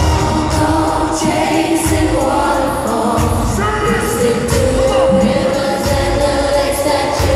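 Live pop concert music: voices singing over the band's steady beat, with the crowd audible underneath.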